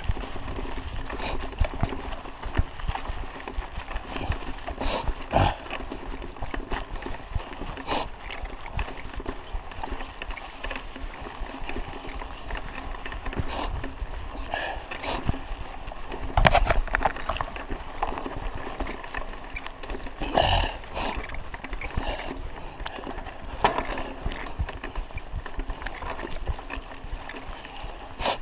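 Raleigh Ascent mountain bike riding over a stony, rutted dirt road: tyres crunching, with frequent irregular knocks and rattles as the bike jolts over bumps and stones. The hardest jolts come a little past the middle and about two-thirds of the way in.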